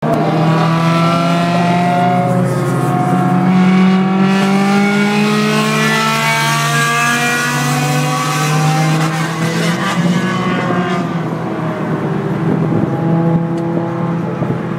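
Car engine heard from inside the cabin at motorway speed, its revs rising slowly and steadily for about the first nine seconds, then easing and holding steadier, with road and wind noise underneath.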